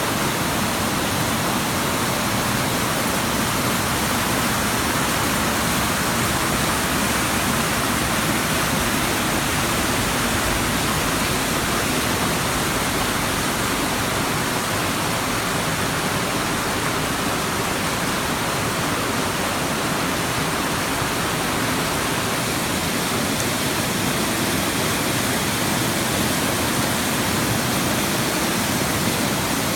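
Small waterfall: water falling and splashing with a steady, even rush.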